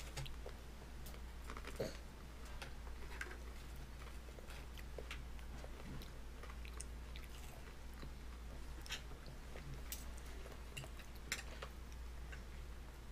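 A baby eating with its fingers from a plastic high-chair tray: small scattered clicks, mouth smacks and chewing, over a steady low hum.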